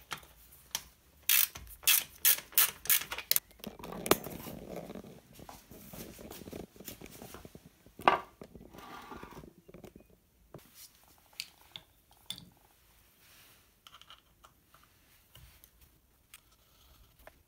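Hand tools and bolts at work on an e-bike's mid-drive motor mount as the motor is unbolted. A quick run of sharp metallic clicks comes first, then a stretch of scraping and handling of metal parts, one sharp clink, and later fainter scattered clicks.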